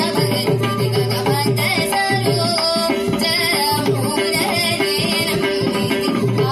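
Carnatic vocal concert music: a girl's singing with violin accompaniment and mridangam drum strokes, over the steady drone of a Radel electronic tanpura.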